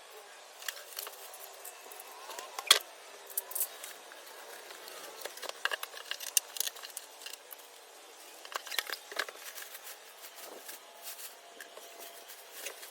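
Scattered clicks, taps and rustling from packaging and parts being handled during unboxing, with one sharp, loud click or knock a little under three seconds in.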